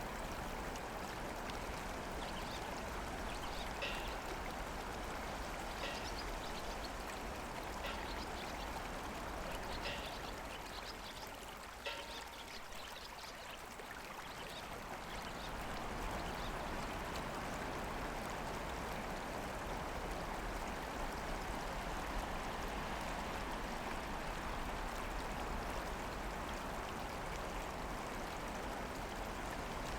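Steady rush of flowing water, like a stream, dipping a little about twelve seconds in before picking up again.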